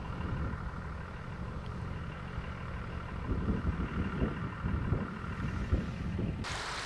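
Vehicle engine idling under gusts of wind buffeting the microphone. About six seconds in, it cuts abruptly to a steady rush of flowing floodwater.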